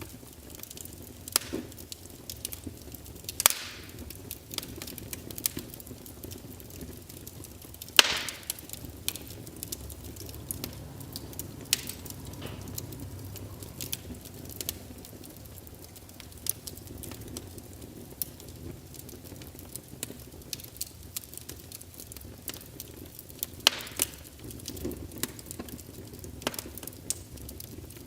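Wood fire crackling in a fireplace: irregular sharp pops and snaps, the loudest about eight seconds in and again near the end, over a steady low rumble of the flames.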